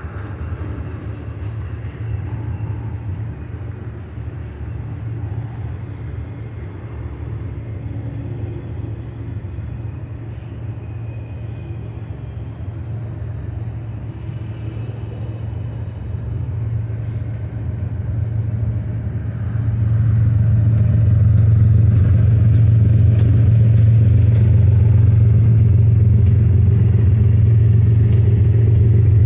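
Double-stack container train's well cars rolling past, a steady low rumble of steel wheels on the rails. It grows noticeably louder about two-thirds of the way through.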